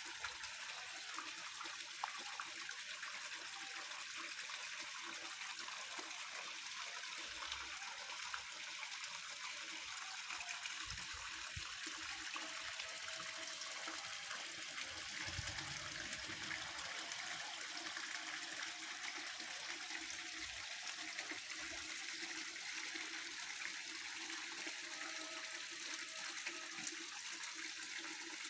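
Water falling and splashing steadily into a garden pond, an even hiss that does not let up. A few low bumps come about halfway through.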